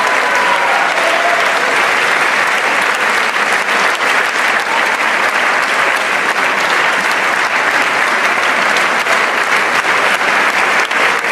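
Large theatre audience applauding steadily, many hands clapping at once.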